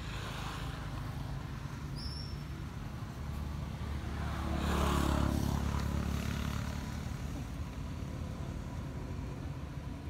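A motor vehicle's engine hum passing by, swelling to its loudest about five seconds in and then fading, with a brief high chirp about two seconds in.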